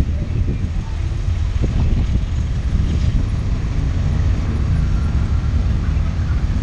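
Motorcycle engine running steadily at low street speed, heard from the rider's seat as a continuous low rumble.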